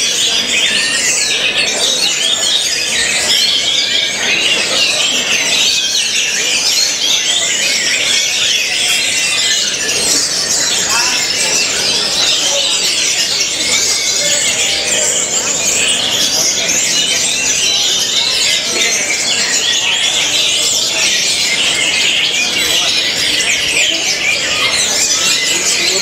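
Caged orange-headed thrush (anis merah) singing a loud, continuous run of rapid, varied high-pitched phrases.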